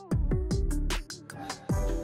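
Background electronic music with a steady beat: a deep kick drum that drops in pitch on each hit, with hi-hats and a sustained synth line.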